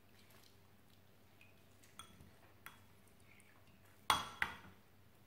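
Citrus half being hand-squeezed on a plastic reamer over a glass bowl: a few faint clicks, then two sharp clinks a third of a second apart about four seconds in, plastic juicer knocking against the glass bowl.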